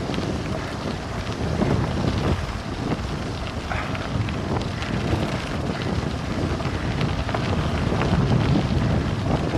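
Wind buffeting the microphone of a bike-mounted 360 camera at descending speed, a steady loud rush, with the crackle and rattle of cyclocross bike tyres rolling over loose gravel.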